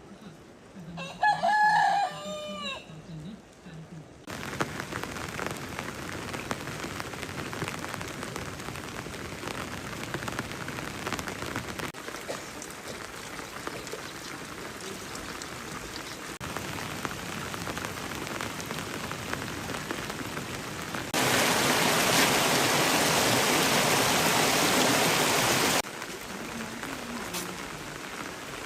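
A rooster crows once about a second in, then rain falls steadily. The rain is louder for about five seconds after the middle, starting and stopping abruptly.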